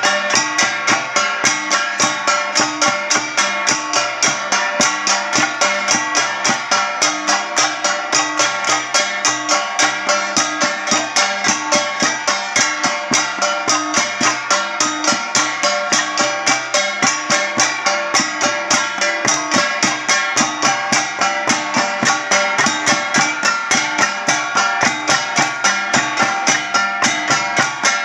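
Ifugao flat gongs (gangsa) struck in a steady, quick rhythm of about three strikes a second, their tones ringing on between strikes.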